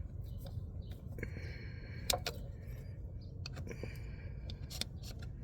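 Hand-tightening the mounting of a plastic coolant reservoir tank: a few sharp clicks and two brief squeaks of the part being snugged down, over a steady low rumble.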